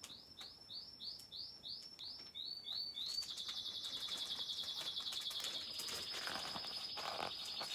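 A songbird singing: a run of quick repeated high chirps, about three a second, that turns into a long steady trill about three seconds in.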